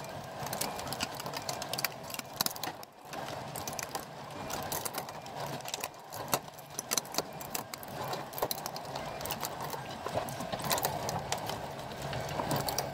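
Hand-cranked Protocycler grinder's stacked steel cutter discs chewing up a piece of 3D-printed plastic support: an irregular run of crunching and sharp snapping clicks as the plastic is cracked into shreds.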